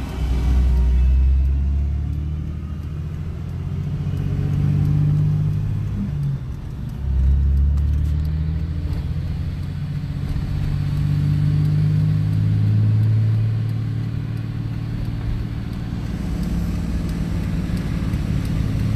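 Vehicle engine running steadily, its pitch drifting up and down, with a deep rumble swelling about a second in and again about seven seconds in, as of traffic passing close by.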